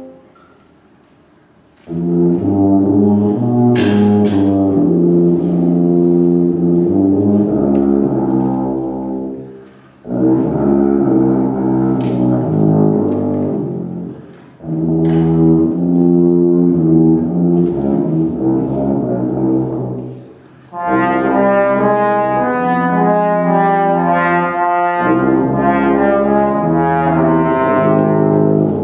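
A small live wind band with French horn, trombone, sousaphone and saxophones plays long held brass chords in phrases with short breaks between them. It enters after a brief pause at the start and grows brighter and fuller over the last third. A couple of sharp percussion hits sound under the chords.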